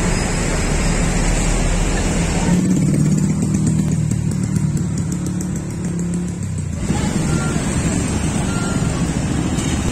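Wind rushing on the microphone, giving way about two and a half seconds in to a motorbike engine humming for about four seconds, then wind and street noise again.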